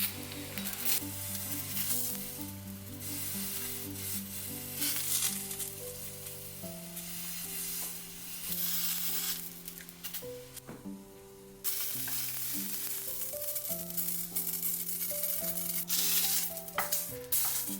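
Food sizzling as it fries in a pan, over soft background music. The sizzle drops away for about a second midway, then comes back suddenly.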